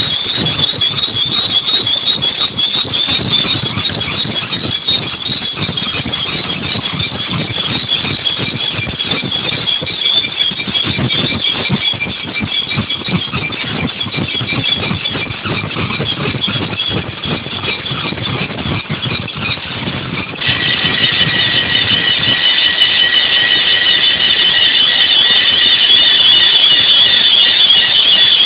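Multi-hole drilling machine cutting holes in a cast-iron brake drum: a steady, high-pitched squeal of the drills in the metal over a low machine rumble. About twenty seconds in the squeal jumps louder with an added lower tone, and the rumble drops away.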